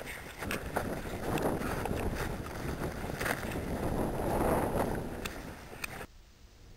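Wind rumbling on the microphone with scattered sharp clicks, which drops away suddenly about six seconds in.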